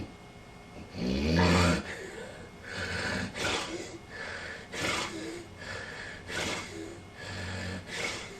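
A sleeping person snoring: a run of about six or seven irregular snores, the one about a second in the loudest and deepest, the others shorter and rougher. The snoring comes from the narrowed airway vibrating as air passes.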